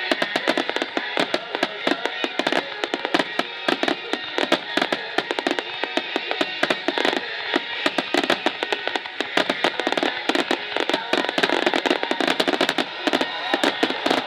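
Star mine fireworks barrage: a dense, unbroken run of sharp bangs and crackles, several a second, over music played for the show.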